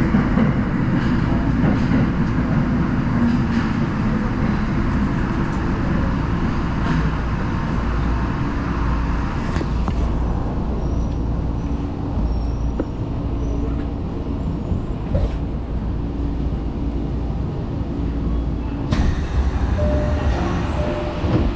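Tokyo Metro Marunouchi Line subway train running, heard from inside the car: a steady rumble of wheels on rail. The higher hiss falls away about halfway through and comes back suddenly near the end.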